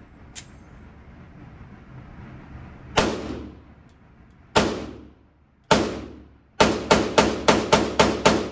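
Pistol fired at an indoor range: three single shots spaced a second or more apart, then a rapid string of seven shots at about three a second. Each shot echoes briefly off the range walls.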